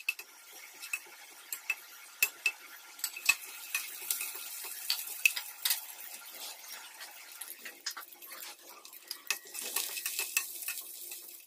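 Stirring utensil knocking and scraping against a stainless steel frying pan while garlic and onions are sautéed, in irregular sharp clicks that ring briefly. A light sizzle of frying runs underneath and grows stronger at times.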